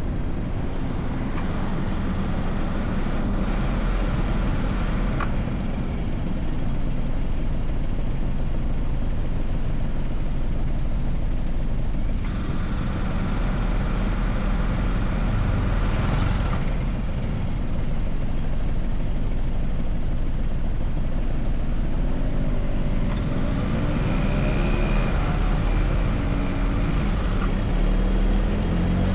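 A car driving through city traffic: steady engine and road rumble, with a brief hiss about halfway through and an engine's pitch rising and falling near the end.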